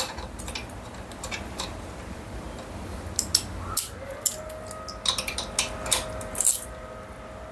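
Light metallic clicks and clinks of a screwdriver working a small screw on a motorcycle's ignition coil terminal, in irregular taps. A faint steady tone comes in about four seconds in.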